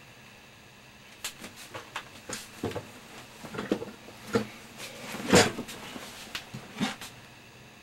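Handling noise: an irregular run of clicks and knocks of small objects being set down on a desk, the loudest about five seconds in, over a faint steady hiss and hum.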